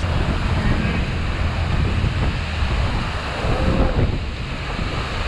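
Steady rushing roar of a waterfall and churning water close by, with heavy wind buffeting the microphone.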